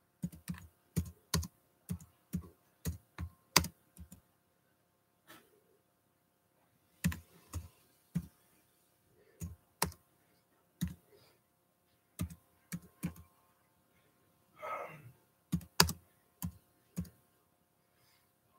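Typing on a computer keyboard: irregular keystrokes, some in quick runs, with a pause of a few seconds after the first few.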